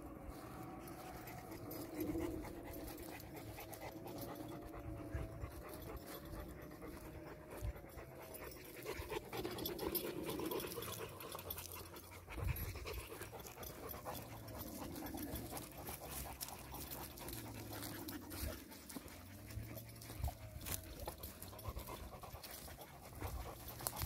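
Rottweilers panting close by while walking, with soft irregular steps on grass.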